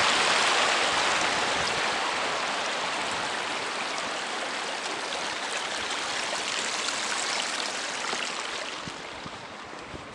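Small mountain stream running and splashing over rocks, a steady rush of water that grows steadily fainter toward the end.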